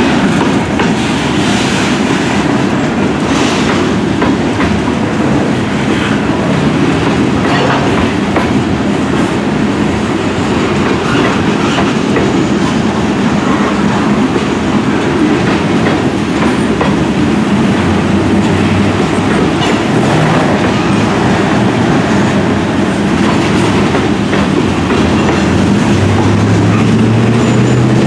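Heavily loaded freight train wagons rolling past, loud and steady, with wheels clacking over rail joints above a continuous rumble. A low steady hum builds in near the end.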